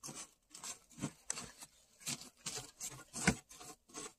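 Crumpled, napkin-like paper crinkling and rustling as hands press it down onto a glued surface, in short irregular crackles.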